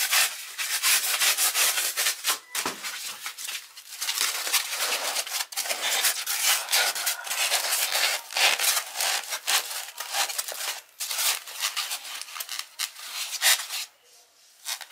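Rapid, irregular abrasive rubbing strokes on a hard surface, with a few short pauses, stopping about a second and a half before the end after one last short stroke.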